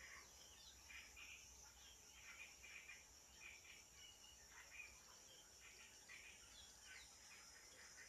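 Faint wild bush ambience: a steady high-pitched insect drone, with many short bird chirps and calls scattered over it.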